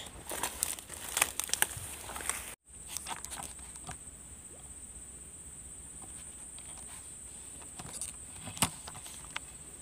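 Close handling noise of a spinning rod and reel: sharp clicks and rustling in the first couple of seconds. After a brief dropout a steady high-pitched drone carries on, with a few clicks, the loudest near the end.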